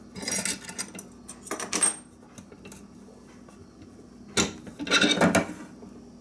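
Parts of a KitchenAid food grinder attachment clinking and clattering against each other as the grinder is taken apart, in three short bouts of rattling knocks.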